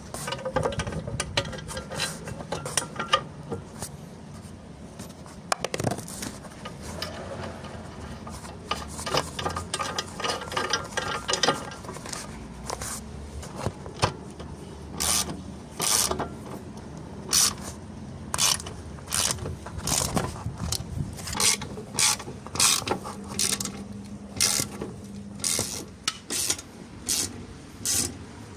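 Hand ratchet with a socket tightening bolts: quick runs of clicks in the first half, then short raspy bursts of clicks, one or two a second, from about halfway on.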